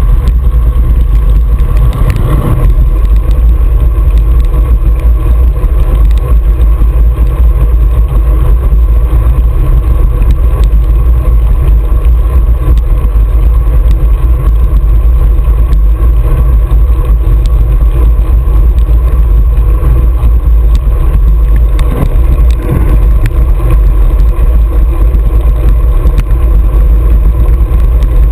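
Loud, steady wind rumble on the microphone of a camera mounted on a road bike's handlebars, riding at speed.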